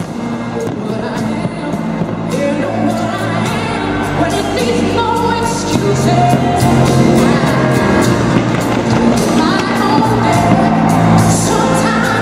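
Music with a singer over a stadium sound system, with fireworks bangs and crackles throughout. The music grows louder over the first half.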